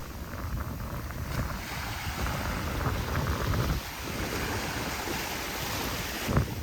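Steady outdoor wind noise on the microphone over the wash of sea water, with no distinct events.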